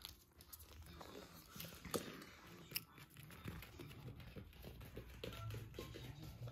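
Toy poodle puppy chewing and nibbling: small irregular crunchy clicks, with two sharper clicks about two seconds and just under three seconds in.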